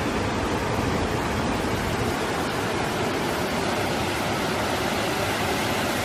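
Waterfall rushing: a loud, steady noise of falling water that does not change.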